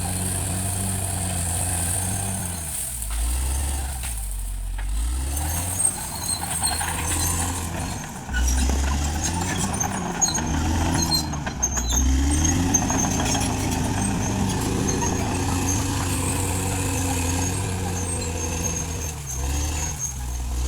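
Caterpillar D6R XL bulldozer's diesel engine working, its pitch sagging and rising again several times as it takes and sheds load, with a few sharp knocks.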